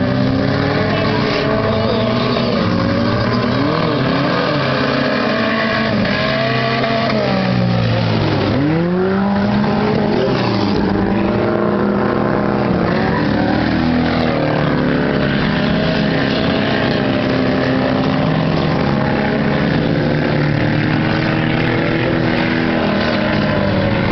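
Several dirt-track race cars' engines running and revving around the oval, their pitches rising and falling through the turns. About nine seconds in, one engine's pitch drops sharply and climbs again as it lifts off and accelerates.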